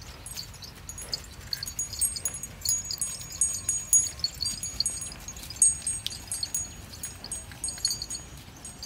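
Small metal bells on the neck harness of a pair of plough oxen jingling as the animals walk, in short, irregular clusters of high tinkles.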